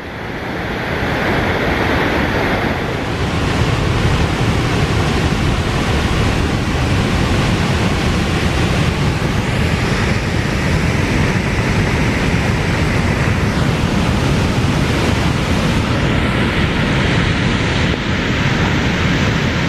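Steady loud rushing of a wide waterfall and its rapids: Cave Falls on the Falls River, running high and raging with spring snowmelt.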